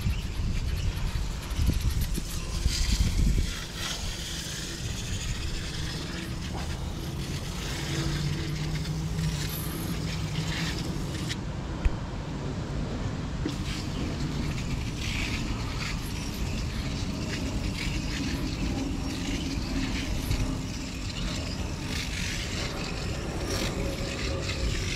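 Aerosol can of foam coil cleaner hissing as it sprays onto the condenser coil fins in repeated bursts, over a steady low rumble.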